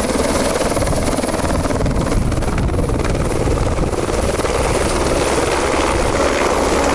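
A loud motor running steadily at close range, with a fast, even pulsing beat.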